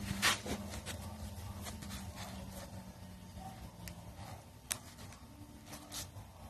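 Close handling sounds of hand-sewing: blue synthetic fabric rustling and a needle and thread being worked through the cloth, with a sharp rustle at the start and a few sharp clicks later on. A low hum in the background fades out in the first few seconds.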